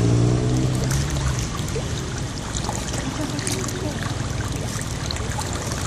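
Lake water splashing as a crowd of fish thrash at the surface for food, with many small splashes. A motor's low hum fades out in the first second and a half.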